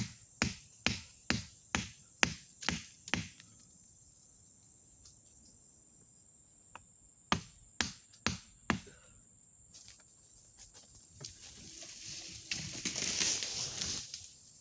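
A knife being batoned into a small tree trunk with a wooden stick. There are sharp knocks about twice a second, a pause, then another run of four knocks, and near the end a rustle and crash of branches as the tree falls. A steady high insect buzz runs underneath.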